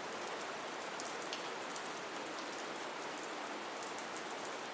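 Steady light rain, an even hiss with scattered crisp drop ticks.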